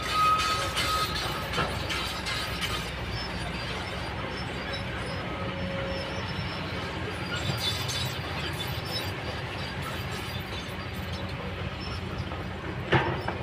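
Kobelco hydraulic excavator working: a steady diesel engine and hydraulic rumble, with clattering stones and metal clanks from the steel bucket. A brief metallic squeal comes at the start and a sharp knock near the end.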